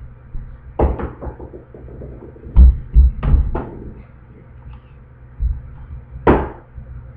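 Several dull thumps and rustles from a hardcover picture book being moved and handled close to the microphone, the loudest clustered about two and a half to three and a half seconds in, over a steady low hum.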